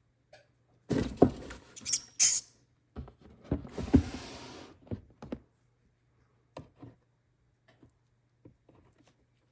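Handling noises: a cluster of sharp knocks and bumps, then more knocks with a couple of seconds of scraping or rustling, then a few light taps.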